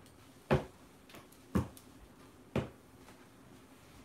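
Three sharp knocks about a second apart, with a fainter tap between the first two, over quiet room tone.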